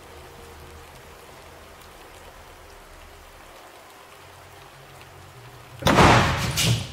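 A faint, steady hiss like light rain. Near the end comes a sudden loud, noisy crash that lasts about a second.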